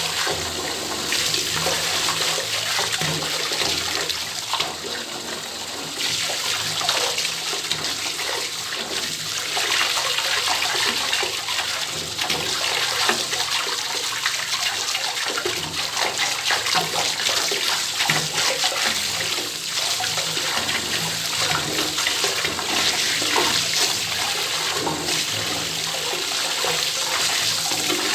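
Water pouring from an open bathtub tap, running steadily, a little softer for a couple of seconds about four seconds in.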